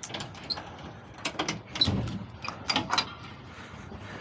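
Irregular clicks and knocks, a dozen or so in quick succession, loudest about two and three seconds in.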